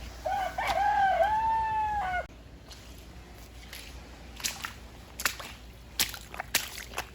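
A rooster crowing once, a single cock-a-doodle-doo lasting about two seconds. Several sharp clicks follow in the second half.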